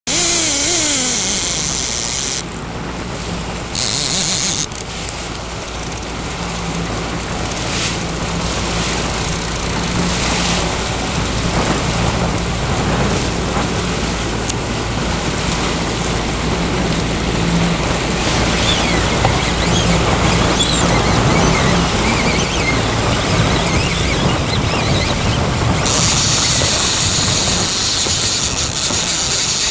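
Boat's outboard motor running steadily while trolling, with the hiss of wind and the wake's wash over it.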